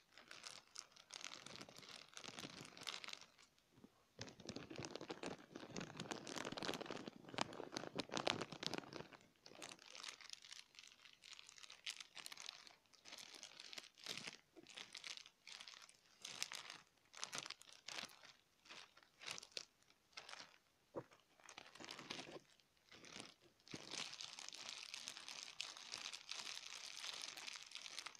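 Thin clear plastic bag being crinkled and scrunched in the hands, close to the microphone: spells of dense crackling with sparser crackles in between.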